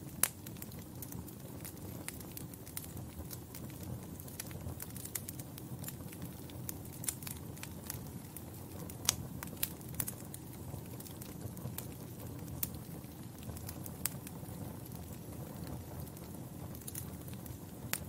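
Log fire crackling in a fireplace: a steady low rumble of flames under scattered, irregular sharp pops and snaps.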